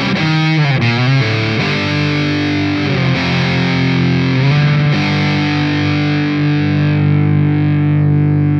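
Gibson Les Paul Special's P90 pickups playing distorted electric guitar through an amp simulator. A few chords with bent, wavering notes, then a last chord struck about five seconds in and left to ring.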